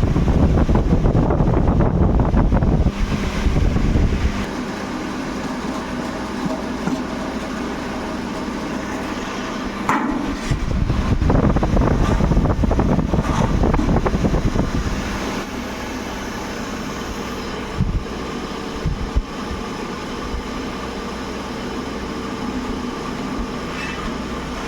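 A steady mechanical hum with a few faint knocks, opening with about four seconds of heavy low rumble and swelling again for a few seconds midway.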